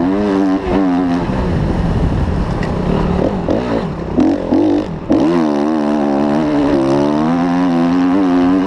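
Motocross bike engine revving under hard throttle, its pitch rising and falling. It drops away briefly about five seconds in, then climbs steadily as the bike accelerates.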